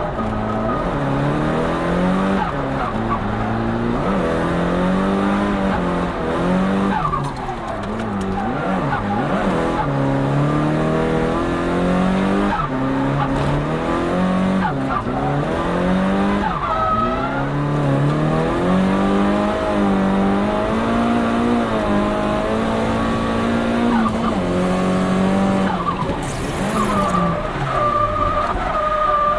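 Turbocharged Nissan Silvia S15 drift car with an HKS GTIII RS turbo, heard from inside: the engine revs up and falls back over and over as the throttle is worked through a drift, with several sharp drops in revs, while the tyres skid.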